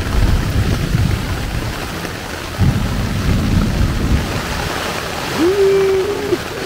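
Heavy rain drumming steadily on a tent's rain fly, with two spells of low rumbling in the first four seconds. Near the end a man lets out a short, drawn-out "ooh".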